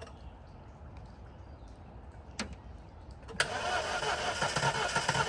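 A petrol car engine is cranked on its starter from about three and a half seconds in, turning over with a regular beat as it tries to catch after water was cleared from its cylinders following hydrolock. A single click comes about a second before.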